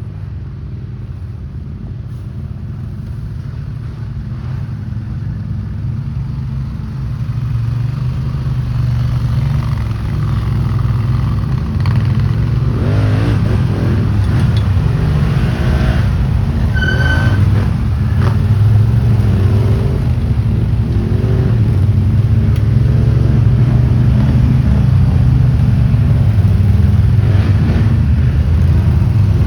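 ATV engines running and revving, the engine noise building up and getting louder, with a brief high-pitched tone about halfway through.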